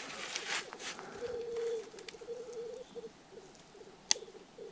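Black grouse cocks bubbling at their lek: a low, cooing warble that comes and goes, with a sharp click about four seconds in.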